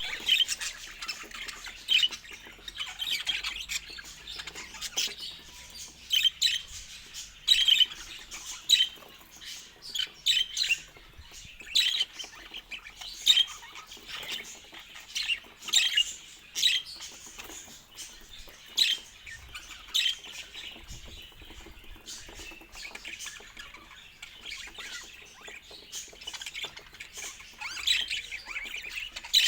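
Budgerigars chirping and squawking in short, scratchy calls, several a second, with a quieter stretch a little after the middle.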